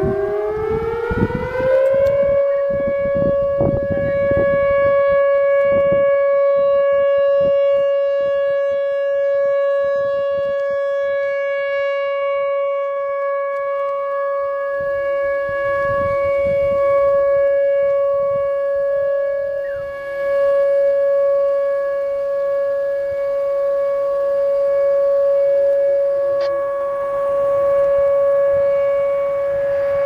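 Whelen Vortex R4 electronic tornado siren sounding a steady alert test tone. It rises in pitch over about the first two seconds, then holds one steady note that swells and fades slightly as the rotating horn head turns.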